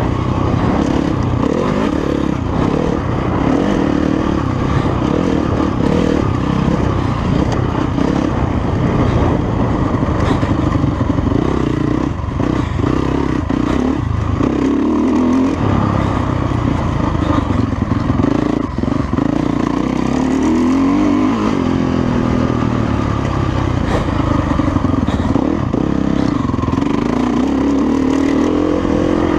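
Motocross bike engine heard close up from an onboard camera, revving up and down continuously as it is ridden hard around the track.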